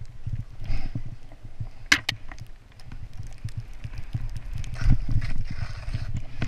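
Skis running through deep powder snow, with wind rumbling and buffeting on the camera microphone and the snow spray hissing in surges about a second in and again near the end. A couple of sharp clicks come about two seconds in, and a hard thump at the very end.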